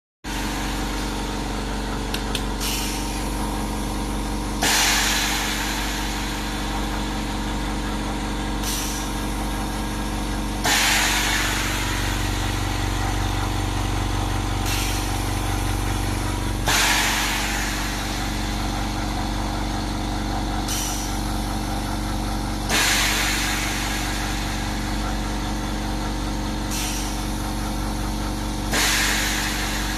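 An ozone generator setup running: a steady electrical hum with a rush of air in a repeating cycle, a softer hiss followed about two seconds later by a louder one, the louder hiss coming every six seconds.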